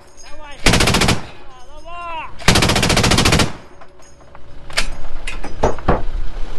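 Truck-mounted heavy machine gun firing two long bursts of rapid shots: one about a second in, lasting under a second, and one at about two and a half seconds, lasting about a second. A few sharp single cracks follow near the end.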